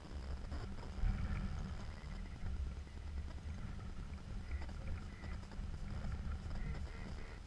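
Wind buffeting the microphone with a rough, uneven rumble, and faint short honking calls repeated several times in the second half.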